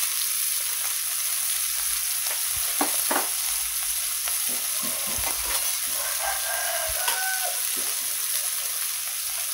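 Oyster mushrooms sizzling as they fry in a little oil in a non-stick pan: a steady hiss, with a few light taps in the first half.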